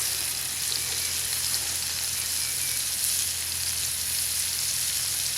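Olive-oil-coated chicken tenderloin strips frying in a mess-kit pan: a steady sizzle with small scattered pops.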